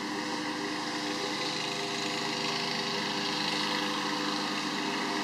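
A motor running steadily: an even, unchanging hum of constant pitch.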